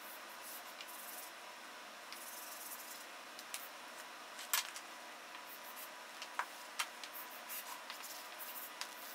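Chalk drawing on a blackboard: faint scratching strokes, with a few sharp taps of the chalk against the board, the loudest about halfway through.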